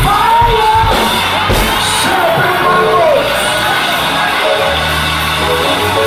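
Live gospel choir music with a band, drum hits and sustained bass under a voice singing and shouting in a large hall.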